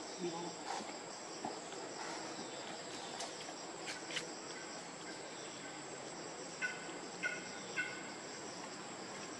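Steady high-pitched buzz of forest insects, with three short pitched calls about half a second apart near the end.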